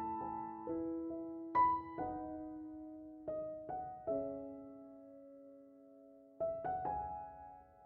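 Soft background piano music: slow single notes and chords, each ringing and fading, with a longer pause in the middle before a few more notes near the end.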